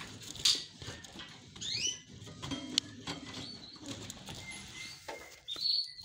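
Pet canaries in a wire cage giving scattered short chirping calls, some sweeping upward in pitch. A few sharp rustles and clicks come from wing flutters and movement on the perches.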